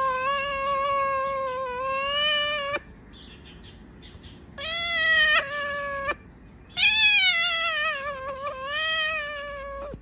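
A cat meowing in three long, drawn-out calls, each lasting one to three seconds, with short pauses between them.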